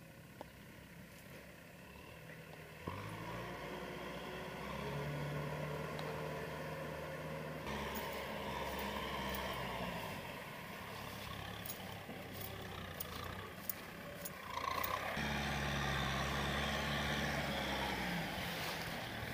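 Kubota M6040SU tractor's diesel engine running under load as it churns through a flooded rice paddy with a rotary tiller, with scattered clicks in the middle. The engine note comes in strongly about three seconds in and shifts abruptly twice, about eight and fifteen seconds in.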